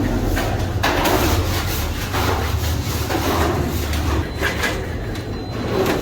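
Bakery production machinery running with a steady low hum, with clattering knocks now and then.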